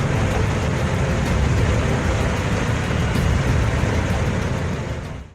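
Steady, loud rushing rumble of a torrent of floodwater, which cuts off suddenly near the end.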